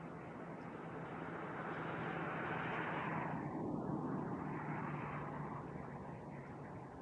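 A vehicle passing by: its road noise swells to a peak about four seconds in, then fades, over a steady low hum.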